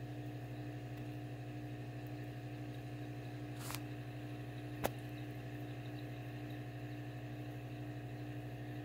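Steady electric hum of running aquarium equipment, with one sharp click about five seconds in.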